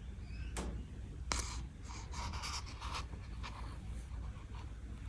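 Handling noise of an open picture book: two sharp taps about half a second and a second and a half in, then soft paper rustling, over a low steady hum.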